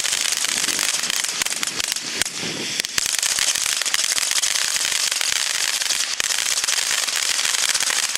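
Pegasus ground fountain firework spraying sparks with a loud, steady hiss and dense crackling. The hiss thins briefly about two seconds in, then a sharp crack starts it up again.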